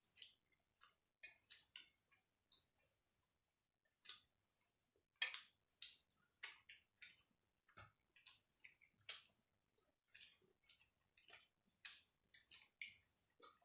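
People eating a rice meal: quiet, irregular clicks and smacks of chewing and handling food, the loudest about five seconds in.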